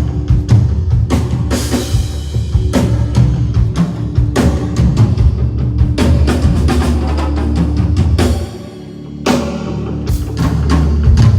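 Rock band playing live at a sound check, with drum kit hits and a steady bass line to the fore. The music drops back briefly about eight and a half seconds in, then the band comes back in on a loud hit.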